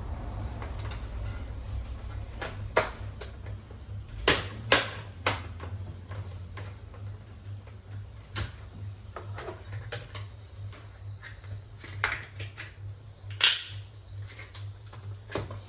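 Scattered sharp clicks and knocks of hard plastic and metal parts being handled during reassembly of an all-in-one PC, over a steady low hum.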